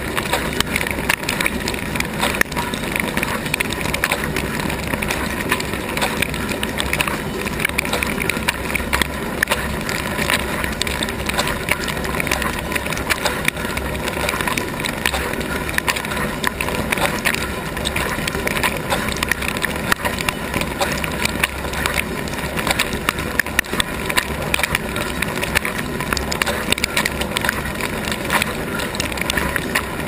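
Inside a Gorenje GS 53314 W dishwasher during the wash: water jets from the rotating spray arm spatter steadily against the dishes and the camera, over a constant low hum from the wash pump.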